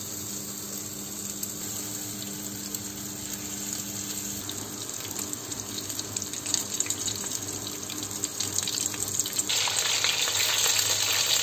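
Battered chicken strips deep-frying in hot oil in a pan: a steady sizzle full of fine crackles, growing denser and louder toward the end.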